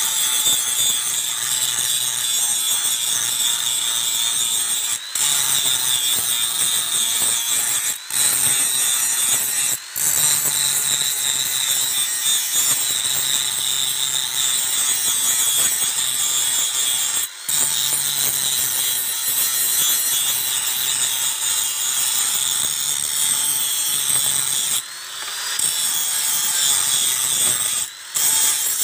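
Handheld angle grinder grinding the edge of a steel machete blade: a steady high whine with the rasp of the disc on the metal, breaking off briefly a few times as the disc lifts from the blade.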